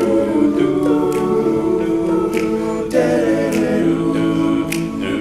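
All-male a cappella group singing held backing chords without lyrics, between sung lines of a song, with sharp percussive clicks now and then.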